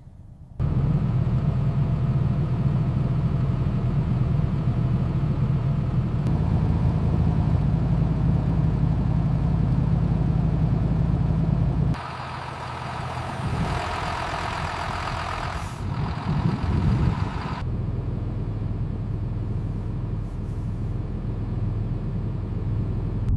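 Peterbilt semi truck's diesel engine running with a steady low hum. About halfway through, a hiss lasting about five seconds comes over it while the hum softens.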